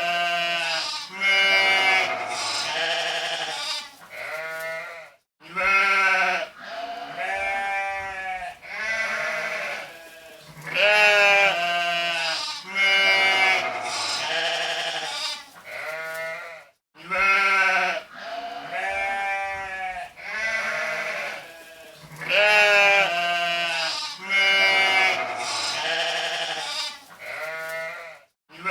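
A flock of sheep bleating over and over, several quavering bleats overlapping one another, with a brief silent gap about every 12 seconds.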